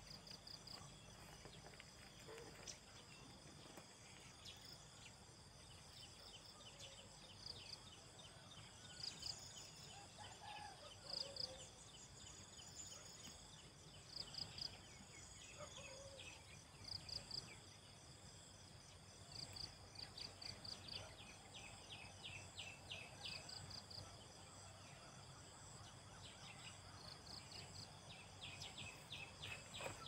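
Faint insects chirping: a steady high-pitched hum with short bursts of rapid chirps every few seconds, and a few faint lower-pitched calls.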